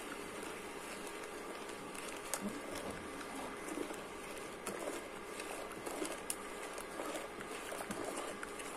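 A slotted spatula stirring milk in a metal pot, with scattered light clicks and scrapes of the spatula against the pot over a steady background hiss, as sugar is stirred into the hot milk to dissolve.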